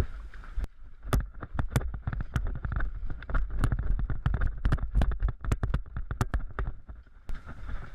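A rapid, irregular series of sharp clicks and knocks over a low rumble, with the densest run in the middle.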